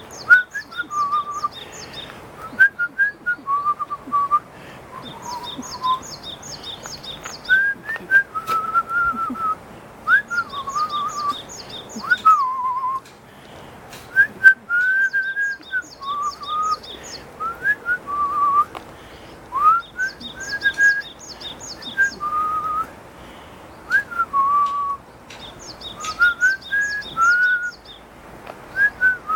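A person whistling a string of short notes that slide up and down. A bird's quick run of high chirps repeats every few seconds above it.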